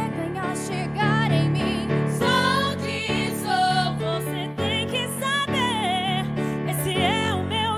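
Women singing a pop song with strong vibrato and melodic runs over a band accompaniment with sustained low bass notes.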